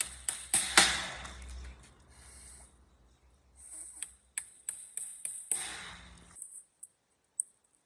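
Sharp taps and knocks of small wooden pieces being handled, with one louder knock about a second in and a quick run of clicks later on; the sound cuts off abruptly a little after six seconds.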